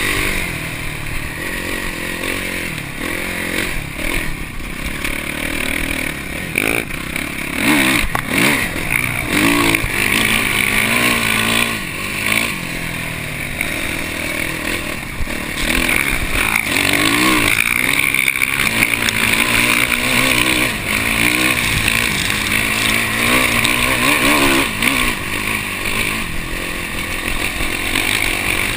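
Dirt bike engine heard from on the bike, revving up and down over and over as it is ridden across sand dunes.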